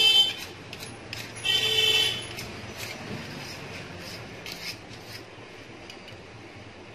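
Knife blade scraping black deposit off a metal rod from a Canon iR2525 photocopier. There is a high squealing scrape right at the start and another about one and a half seconds in, then quieter, shorter scraping strokes.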